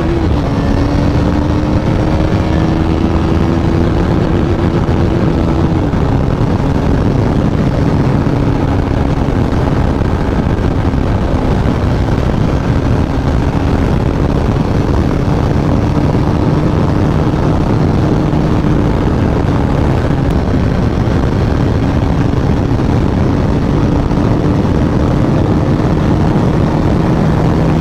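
KTM RC 390's single-cylinder engine running steadily while riding at cruising speed, its note drifting gently up and down and dipping slightly about six seconds in, over a steady low rush.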